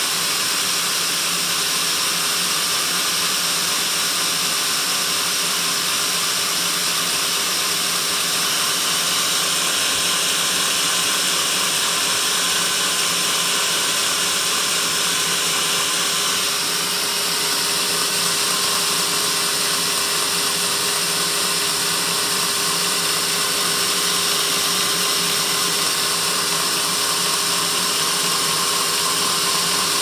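Band sawmill running steadily with its blade turning but not in the wood, between cutting passes on a teak log.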